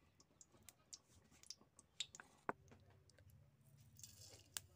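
Mostly near silence with faint scattered ticks. About four seconds in, panch phoron seeds sprinkled into hot mustard oil in a kadhai set off a faint sizzle.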